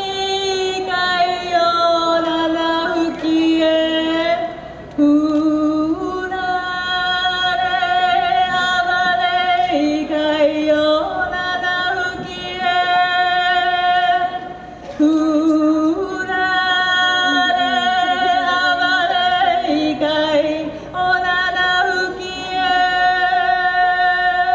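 Hawaiian chant for hula kahiko: a single voice holds long notes with a wavering, yodel-like vibrato, in phrases of about five seconds broken by short pauses for breath.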